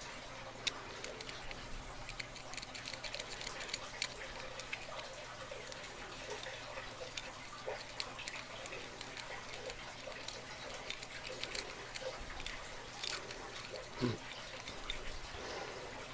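A lock being picked with a pick and tension wrench: many small, irregular metallic clicks and scratches as the pick works the pins, over a faint steady hum.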